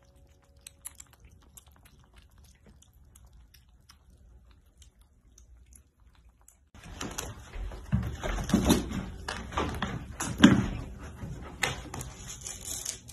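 Faint soft clicks of kittens chewing and lapping wet food. About seven seconds in, a louder stretch of rustling and scratching with many sharp clicks begins as a kitten climbs a fabric curtain, its claws catching and pulling at the cloth.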